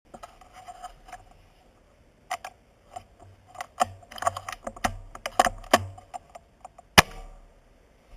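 Handling noise from a rifle with a camera mounted on it: a series of irregular clicks, knocks and rattles, thickest in the middle, then one sharp, loudest crack with a short ringing tail about seven seconds in.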